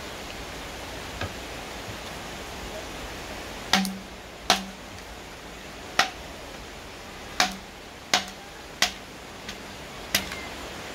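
A series of about eight sharp knocks at uneven intervals, each leaving a brief low ring, over a steady hiss.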